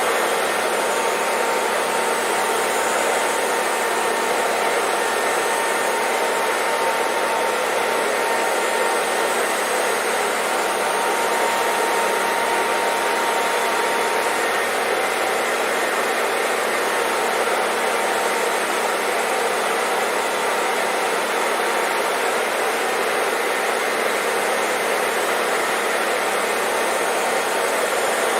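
Electric hair dryer running continuously, a steady even rushing of fan and airflow with a faint steady whine, played as white noise to soothe a baby to sleep.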